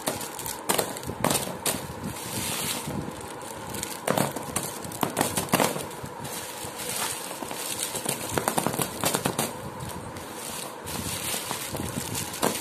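Wrapped Eclairs toffees being pushed and slid around a tabletop by hand, their shiny twisted wrappers crinkling and the sweets clicking against each other in irregular bursts.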